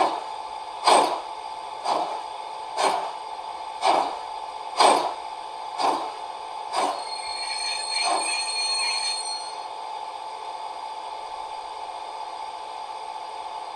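Sound decoder in a Gauge 1 brass model of a class 64 steam tank locomotive playing steam-exhaust chuffs through the model's loudspeaker, about one a second, growing weaker and stopping about eight seconds in, as a high squeal sounds for a couple of seconds. A steady hum runs underneath.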